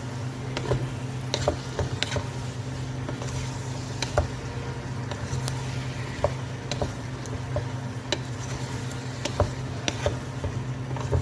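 Pot of vegetables cooking on the stove, with scattered sharp pops and crackles over a steady low hum.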